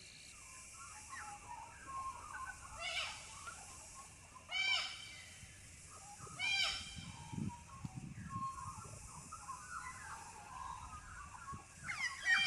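Birds calling: a loud, short, arched call repeated four times at uneven gaps, with softer chirping between.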